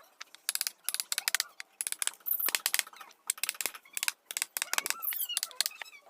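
Hand carving chisel cutting into teak wood: quick, irregular sharp cuts and taps in clusters.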